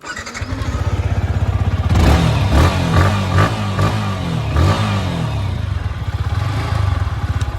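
Yamaha R15M's 155 cc single-cylinder engine on its stock exhaust starting up and idling, then blipped several times so the exhaust note rises and falls, before settling back to idle and shutting off near the end.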